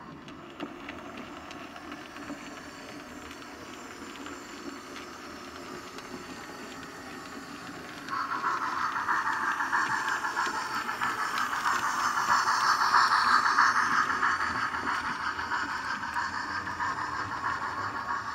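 Steam locomotive sound for a model of the Ivatt tank 41250 running on track: a low running noise at first, then a loud, steady steam hiss that starts suddenly about eight seconds in and slowly eases off near the end.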